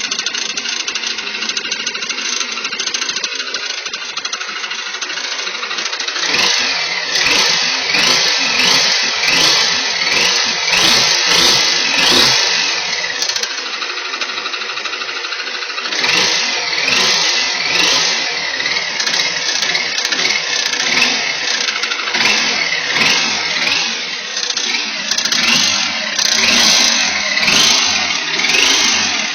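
Mitsubishi Triton pickup's newly installed replacement engine running, then revved over and over from about six seconds in, each rev a rising whine that drops back.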